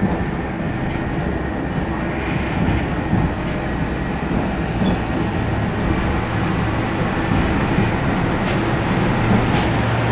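Alexandria city tram running, heard from inside the car: a steady rumble of the wheels and car body. A low steady hum comes in about halfway through, and there are a couple of sharp clicks near the end.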